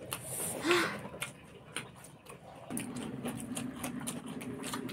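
Close-up eating sounds: lip smacking and wet chewing clicks from people eating rice and curry by hand. A low steady hum comes in about halfway through.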